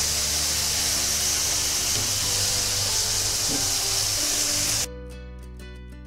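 Lemon juice sizzling in hot oil in a frying pan as it is squeezed in, over background music. The sizzle cuts off suddenly about five seconds in, leaving only the music.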